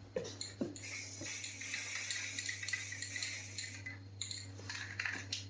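Metal scratching and clinking over a steady low hum: sharp clicks, then about three seconds of dense, crackly scratching, then more clicks.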